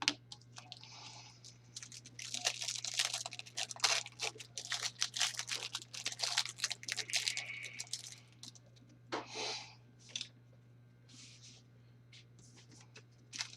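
Trading cards and their foil pack wrappers being handled: a run of crinkling, tearing and scraping rustles, busiest for the first eight seconds, then a few scattered ones, over a steady low hum.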